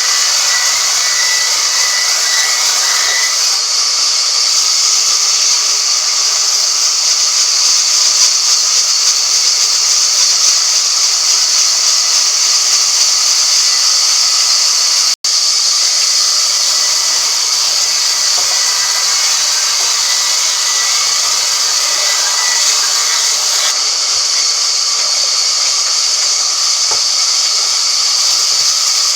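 A woodworking machine running steadily as it cuts wood, a continuous high hiss that drops out for an instant about halfway through.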